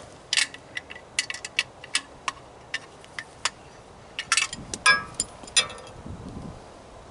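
Metal parts and hand tools clinking and clanking as they are handled during a teardown: a dozen or so irregular sharp clicks, a few of them ringing briefly.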